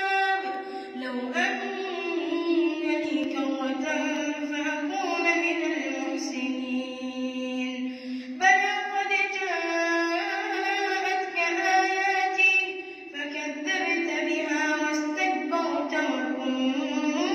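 A boy's voice reciting the Quran in melodic tajweed style, holding long drawn-out notes with short breath pauses.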